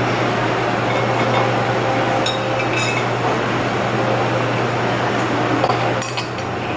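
A few light clinks of metal chopsticks against a ceramic bowl, the strongest cluster near the end, over a steady low hum.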